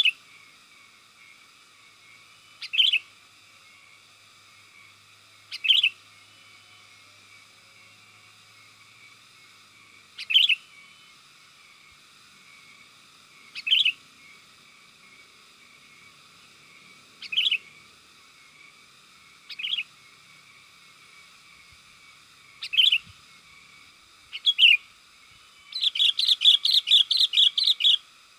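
Sooty-headed bulbul giving short, sharp calls every few seconds, about nine in all, then breaking into a fast chattering run of notes near the end.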